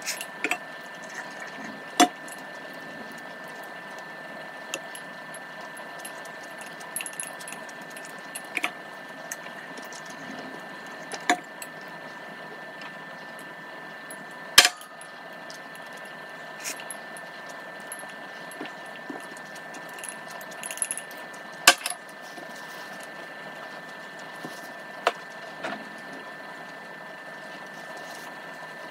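Eating sounds of a mukbang with Indomie Mi Goreng fried instant noodles: wooden chopsticks clicking and tapping every second or few against the wooden board and cup, with soft chewing between. The two sharpest clicks come about halfway and three quarters through, over a steady background hum with several fixed tones.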